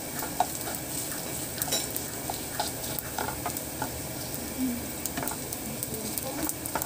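Minced garlic sizzling in oil in a nonstick frying pan, stirred with a wooden spoon that scrapes and taps against the pan now and then. The garlic is being sautéed until it browns.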